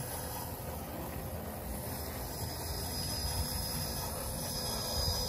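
Electric 1/10-scale RC rock crawler driving slowly over rock: a steady hiss with a faint, even high whine.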